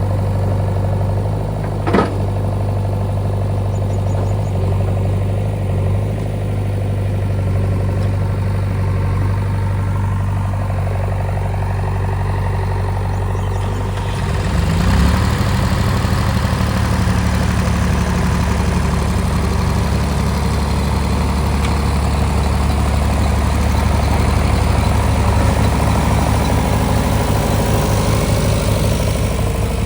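Diesel engine of a JCB digger running steadily, with one sharp knock about two seconds in. About halfway through the engine picks up and runs harder and louder as the machine works the soil.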